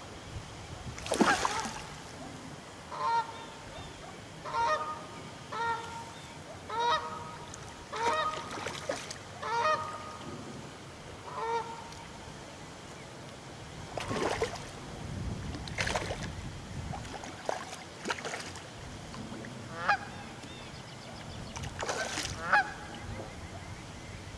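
Geese honking: a run of about eight short calls roughly a second apart, then a few more scattered calls later.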